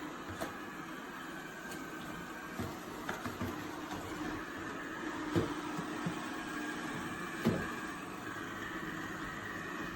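eufy RoboVac 11S Max robot vacuum running with a steady hum, with a few light knocks scattered through it, the sharpest about five and a half and seven and a half seconds in.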